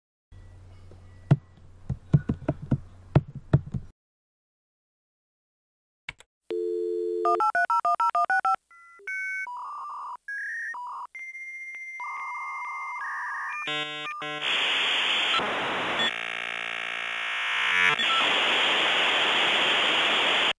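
Dial-up modem connecting, after a few sharp clicks over a low hum. It plays a steady dial tone, then a quick string of touch-tone digits being dialed, then a series of shifting handshake tones. From about two-thirds of the way in comes the loudest part, a harsh hissing noise as the modems negotiate the connection.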